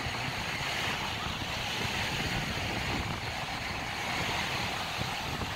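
Beach ambience: surf washing steadily onto the sand, with wind rumbling on the microphone and faint distant voices of beachgoers.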